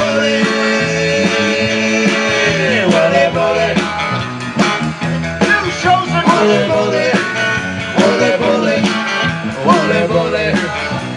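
Live rock-and-roll band playing: electric guitars over bass and drums, with guitar notes bending in pitch about three seconds in and again near the end.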